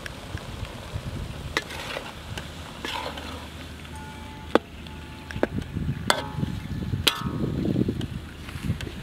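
Metal spatula scraping and clanking against a wok while stir-frying vegetables and egg, over a steady sizzle. There are several sharp metallic clinks, the loudest past the middle, and some of them ring briefly.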